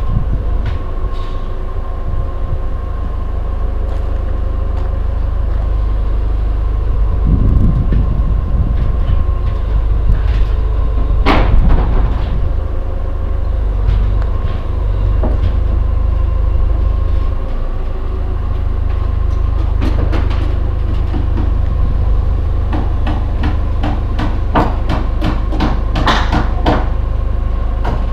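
Steady low rumble with scattered sharp knocks and clatter from work on a wooden house under construction. The knocks come in a quick cluster near the end.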